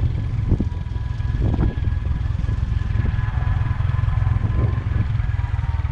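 Motorcycle engine running steadily while riding downhill, with a heavy low wind rumble on the microphone.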